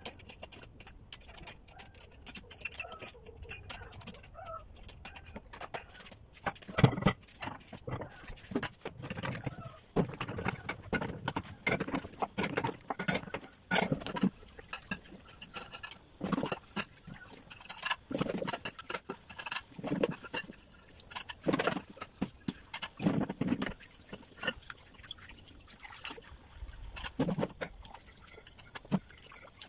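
Dishes being washed by hand at a stainless steel sink: plates and square dishes knocking and clattering against each other and the sink, with tap water running.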